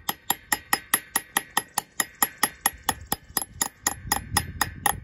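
Rapid, even hammer taps, about five or six a second, on the steel installation cup driving an SKF Speedi-Sleeve onto a VW output flange, each tap ringing metallically. The ring changes tone as the sleeve reaches the bottom of the flange and seats.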